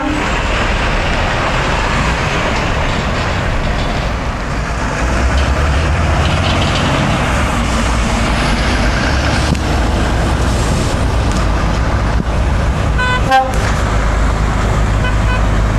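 Heavy trucks running past with steady engine and road noise, a low engine drone building about five seconds in. About 13 seconds in comes a short air-horn blast, and a fainter horn tone sounds near the end.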